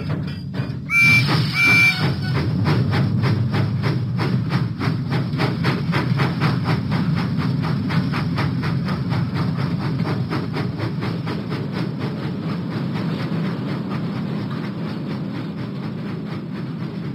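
Cartoon steam locomotive sound effect: two short whistle toots about a second in, then the engine running with a steady, fast rhythm of chuffs over a low rumble, fading away near the end.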